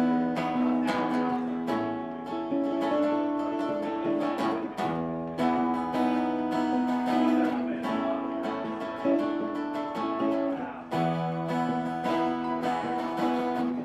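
Acoustic band playing an instrumental intro: strummed acoustic guitars over sustained chords, with no singing.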